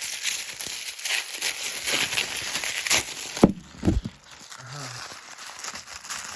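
Wrapping paper crinkling and rustling as a small packaged item is unwrapped by hand, with a couple of soft knocks about three and a half seconds in, then quieter rustling.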